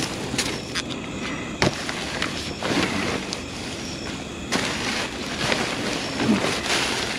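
Rummaging through trash in a dumpster: plastic garbage bags and cardboard boxes rustling and crinkling, with scattered sharp knocks and clicks, and the rustling getting busier about halfway through.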